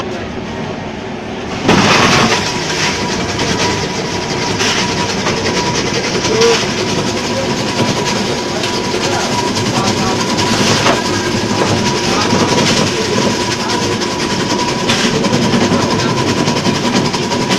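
Electric ice block crusher grinding a block of ice fed into its steel hopper: a loud, steady rattling grind with a constant whine. It sets in sharply about two seconds in.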